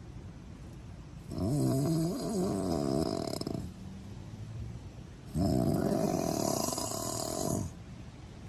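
Snoring: two long, wavering snores, each about two seconds, starting about four seconds apart.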